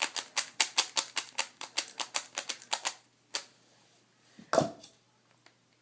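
A freshly spray-lubricated 3x3 Rubik's cube being turned fast: a rapid run of plastic clicks, about eight a second, for about three seconds, then one more click. A short, louder noise comes about a second later.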